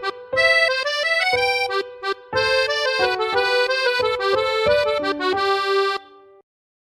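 A built-in Huawei EMUI 2.3 phone tone: a quick melody of short, bright notes on a reedy instrument sound, which stops about six seconds in.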